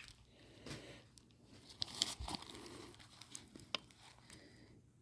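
Faint crinkling of packaging with a few small clicks as a mini bag charm is taken out of its blind-bag wrapping.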